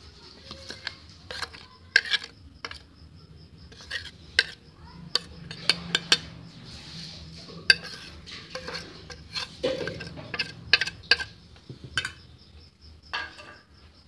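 Steel dishes clinking: a steel plate knocked and tapped against a steel mixing bowl while gram flour is emptied from it. The clinks are irregular and sharp, coming many times.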